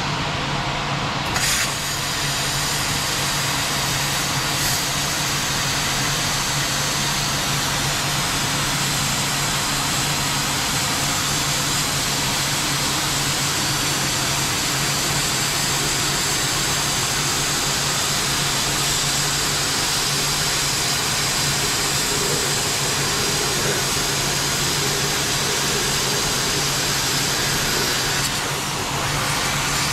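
Hand-held plasma cutter cutting through the steel case of a hermetic A/C compressor, a loud steady hiss that strengthens about a second and a half in as the cut gets going. Under it is the steady hum of a shop exhaust fan.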